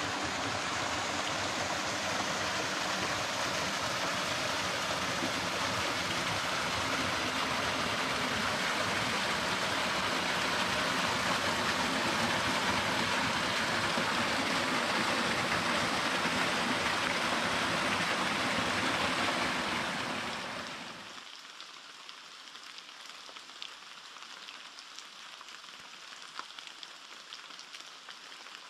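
A small forest stream rushing and splashing over rocks in a steady, loud rush. About twenty seconds in it drops within a second to a much quieter trickle of water with faint scattered ticks and drips.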